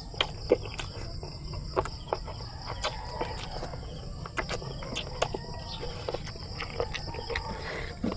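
Close-up mouth sounds of a man eating boiled chicken and rice by hand: irregular wet chewing clicks and lip smacks, over a steady high-pitched insect drone.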